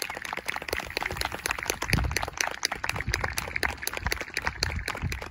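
Crowd applauding, a dense irregular patter of hand claps, right after the marching band's final chord.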